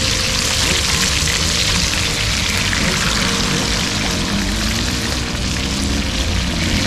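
Snapper fillets sizzling steadily as they pan-fry in hot oil, with background music playing underneath.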